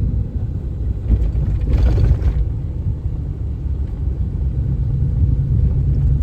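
Pickup truck driving on a dirt road, heard from inside the cab: steady low engine and tyre rumble, with a brief rush of noise about two seconds in.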